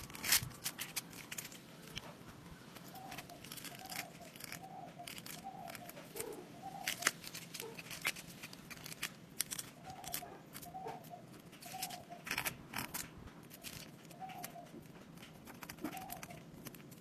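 A paper cupcake liner crinkling and tearing as it is peeled off a hardened disc of dalgona honeycomb candy, in irregular small crackles and snaps.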